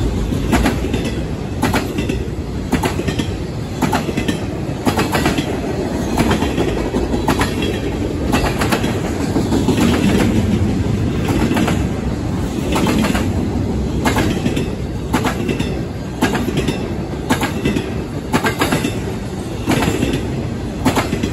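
Intermodal freight cars rolling past over jointed rail: a steady rumble broken by repeated clickety-clack as the wheelsets strike the rail joints.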